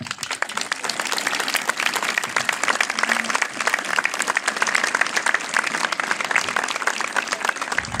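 Crowd applauding: a dense round of hand-clapping that starts abruptly and stays steady until it drops away near the end.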